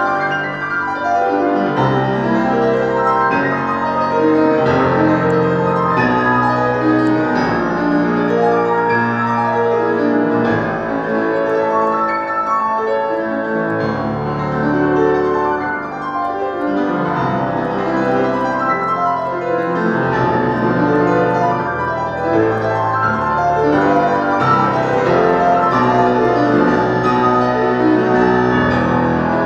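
Schimmel grand piano played solo: a continuous, busy passage of many notes and full chords, with no pause.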